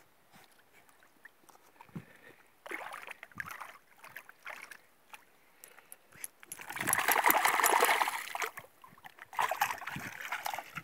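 Dog wading out of a lake through shallow water, its legs splashing in irregular spells. The splashing is loudest and densest for about two seconds just past the middle.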